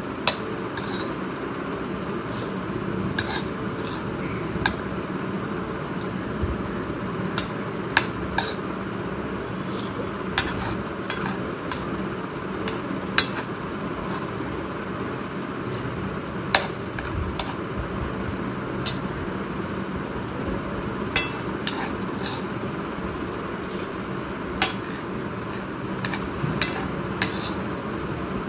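Metal spoon clinking and scraping against a ceramic plate while eating, in sharp irregular clinks every second or two, over a steady background hum.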